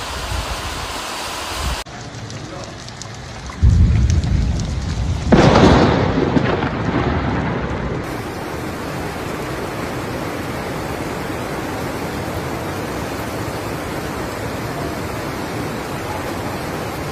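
Two loud booms: a deep one about three and a half seconds in and a sharper, louder one about two seconds later, each trailing off in a long rumble. Then comes the steady rushing of muddy floodwater flowing across a road.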